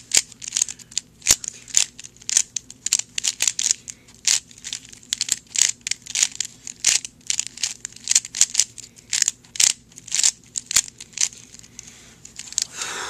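A 3x3 Rubik's Cube's plastic layers being turned in quick succession, a fast irregular run of clacking clicks, as the cube is scrambled for the next solve. The turning stops about a second before the end.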